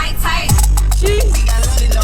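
Upbeat background music with a steady beat and percussion.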